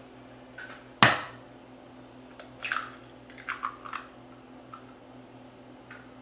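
Eggs being cracked against the rim of a mixing bowl: one sharp crack about a second in, a few lighter clicks of shell and bowl after it, and another crack at the very end.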